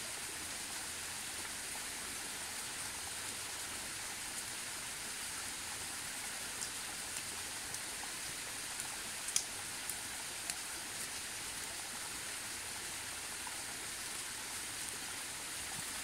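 Steady outdoor hiss with no clear source, over which a hiker's trekking poles and footsteps on the dirt track give a few light clicks and taps between about six and ten seconds in, the loudest near nine seconds.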